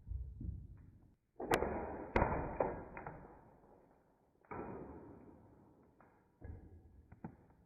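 Homemade wooden slingshot rifle being shot: a series of sharp snaps and thuds. The two loudest come about two-thirds of a second apart, a second and a half in, and a few weaker ones follow.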